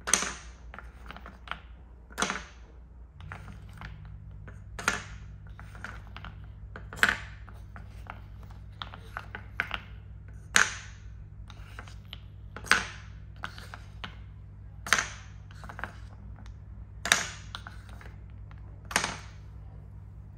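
Solid linden-wood balls dropped one at a time from a wooden spoon into wooden cups: a sharp wooden clack about every two seconds, with lighter clicks of the spoon and balls knocking in the wooden bowl in between.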